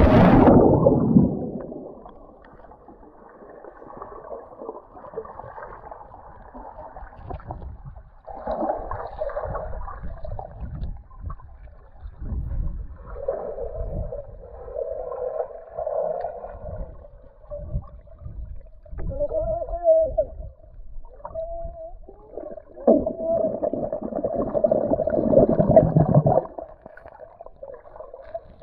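A splash into the water, then muffled underwater sound from a submerged camera: bubbling and gurgling water with a few muffled hums, the high end cut off by the water.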